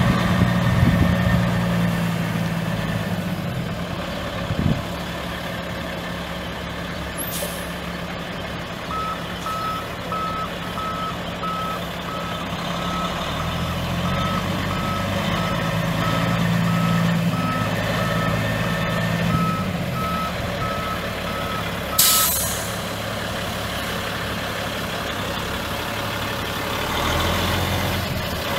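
Caterpillar C12 diesel of a Freightliner semi truck running while its backup alarm beeps steadily from about a third of the way in, showing the truck is in reverse. The beeping stops with a sharp hiss of air brakes about three-quarters through.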